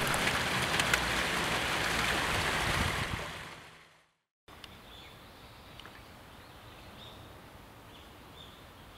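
Running water with small splashes, fading out about four seconds in. After a brief silence, a quiet outdoor background follows with a few faint high chirps.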